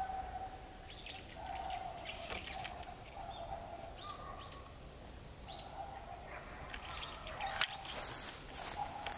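Small birds giving short, high chirps in brushy undergrowth, mixed with crackling and several sharp clicks from the brush that grow busier near the end. A steady hum comes and goes underneath.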